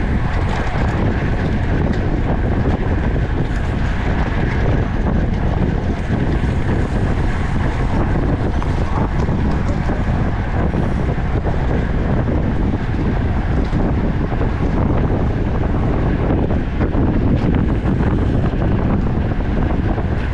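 Wind buffeting the microphone of a camera riding on a road racing bike at speed: a steady, loud rushing with a heavy low rumble.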